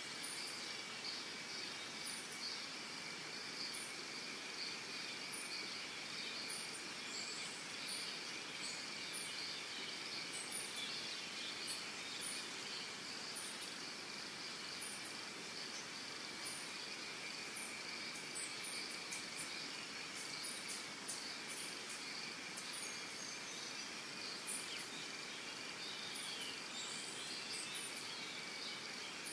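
Steady chorus of insects, a continuous high buzz on two pitches, with short high chirps every second or two and a few bird calls.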